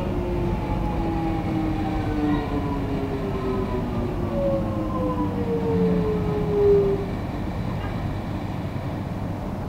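X'Trapolis electric train heard from inside its front carriage, slowing into a station: the traction motor whine falls steadily in pitch over a low rumble of the wheels on the track. The whine fades out about seven seconds in as the train nears a stop.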